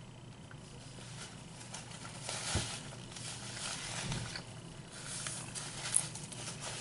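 Close-up chewing and wet mouth sounds of a person eating, with a couple of sharp mouth clicks, one about two and a half seconds in and one near the end.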